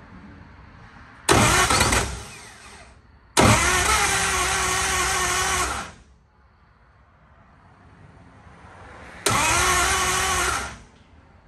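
1936 Ford flathead V8 cranked on its starter in three bursts: a short one, a longer one of about two and a half seconds, and one of about a second and a half, each with a steady whine. The engine catches only briefly and won't keep running, which the owner puts down to the throttle blades being left shut.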